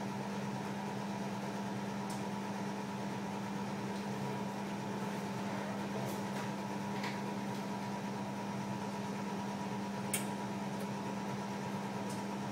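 Steady machine hum with a fan-like hiss, holding two constant tones, one low and one higher. A few faint clicks come through, the sharpest about ten seconds in.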